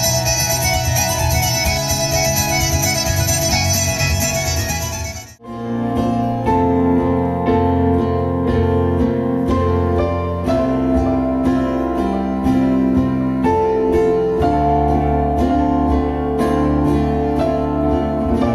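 A Nordic folk trio of violin, accordion and guitar playing. About five seconds in it cuts off abruptly and gives way to a Technics digital piano playing slow, sustained chords, with a new chord about every second.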